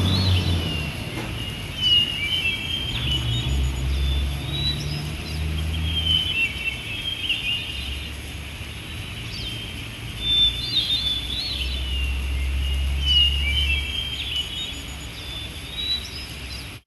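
A bird singing short, chirpy warbled phrases every few seconds over a low rumble.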